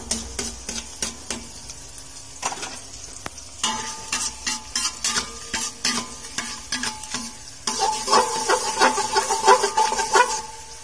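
Minced garlic sizzling in hot oil in a metal wok, sautéing, while a metal spatula stirs and scrapes against the wok with repeated clicks and metallic scrapes. The scraping is loudest over the last three seconds.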